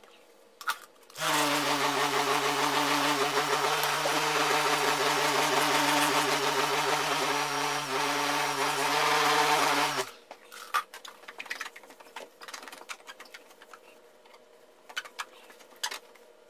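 Craftsman electric buffer-polisher running steadily while buffing rubbing compound on a plastic headlight lens. It starts about a second in and is switched off about ten seconds in, its pitch dropping briefly as it winds down. After that, faint rubbing and light clicks as a cloth wipes the lens.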